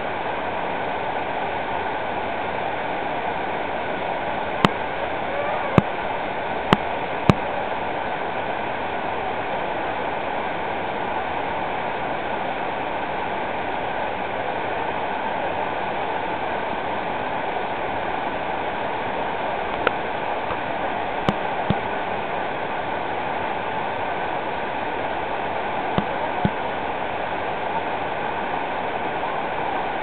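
Hirayu Great Falls, a tall waterfall, giving a steady, even rush of falling water. A few sharp clicks stand out over it: four close together a few seconds in, and several more past the middle.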